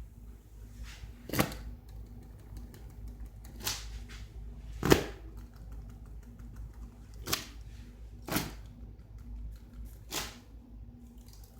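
Half a dozen sharp taps or knocks at uneven intervals, the loudest about five seconds in, over a low steady hum.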